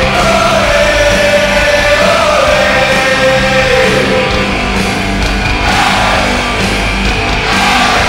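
Loud rock music with a singing voice: the hockey goal song that follows the goal horn.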